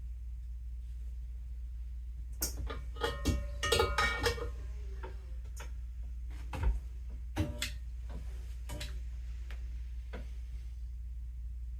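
Light metal clinks and taps with short ringing, from steel helmet hardware such as swivel bales being handled against the helmet. A quick cluster comes about two to five seconds in, then single clinks follow every second or so, over a steady low hum.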